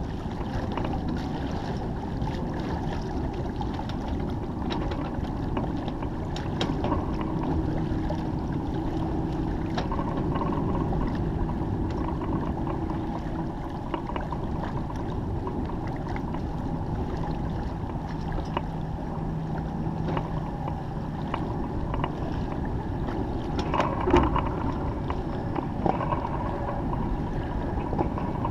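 Water rushing along the hull of a heeled Bénéteau First 30 sailboat under sail in light wind, with wind on the microphone. There are a few small knocks and one louder thump near the end.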